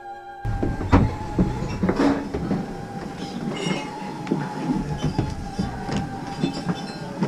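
Footsteps of several people clattering irregularly down a wooden staircase, with a steady tone underneath.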